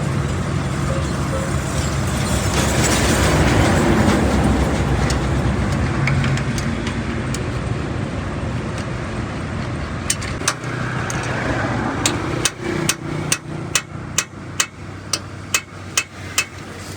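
Traffic noise from a passing vehicle, then a run of about a dozen sharp hammer blows on metal, roughly two to three a second, starting in the second half.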